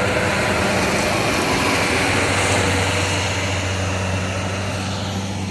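Bobcat S185 skid steer's turbo-diesel engine running steadily, a low hum under a broad hiss. The machine has a failed turbocharger that leaks oil and makes blue-white smoke.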